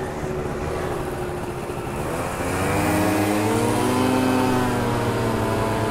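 Yamaha Booster 50cc two-stroke scooter engine under way, revving up about two and a half seconds in and holding higher revs as it accelerates, with wind noise on the microphone.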